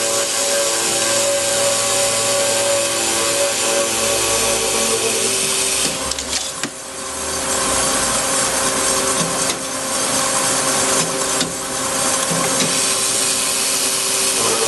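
Carbide-tipped circular cold saw cutting through a solid round metal bar: a steady high hiss from the blade in the cut over a steady machine hum. The cutting sound drops briefly about six seconds in, then picks up again with a few short knocks.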